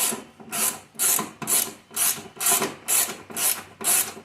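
Back-and-forth rasping strokes of an abrasive worked by hand on bodywork, about two strokes a second, in an even rhythm.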